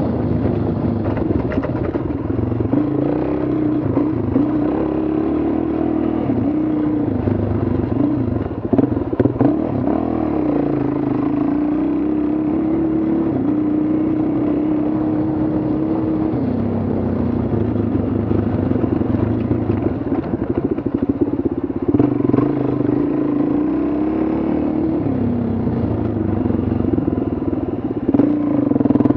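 Dual-sport motorcycle engine running along a dirt trail, its pitch rising and falling as the rider works the throttle. Clattering knocks from the bike over rough ground around nine seconds in and again near the end.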